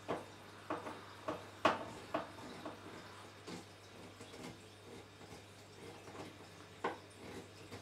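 Screwdriver tightening a brass terminal screw in a cooker connection unit: faint, irregular clicks and scrapes of the blade turning in the screw head, with two louder clicks, one near the start and one near the end.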